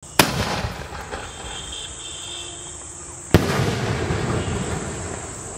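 Suryakala Marvel aerial firework shell: a sharp bang of the launch, then about three seconds later a second, louder bang as the shell bursts, each followed by a long trailing rush of noise.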